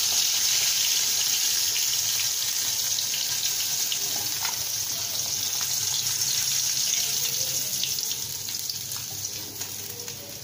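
Bhola fish frying in hot mustard oil in a kadai: a steady sizzle with scattered small pops, dying down over the last few seconds as the fried pieces are lifted out.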